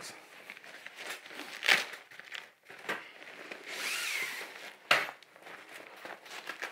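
Rustling and crinkling of a softbox's fabric carrying bag being handled and unfolded on a table, with two sharper knocks, about two seconds in and about five seconds in.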